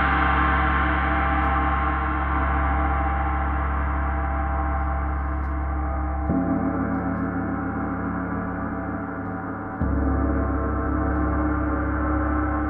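A 34-inch Paiste Symphonic gong ringing in a continuous, dense wash of many overlapping tones, played with felt mallets. About halfway through the deep bass drops away, then comes back with a louder swell near the end.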